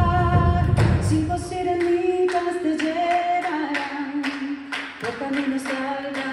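Live music: wordless voices holding long notes over a low drone. The drone drops out about a second and a half in, then sharp clicks come in about two to three times a second under the held notes.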